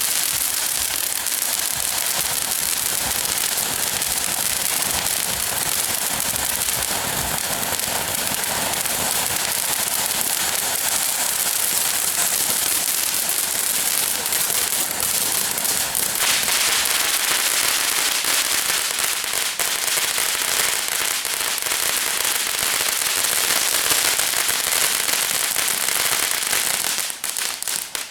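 A ground fountain firework, a Lava Dome, burning with a continuous dense crackle and hiss. About halfway through it turns brighter and sharper, and it dies away near the end.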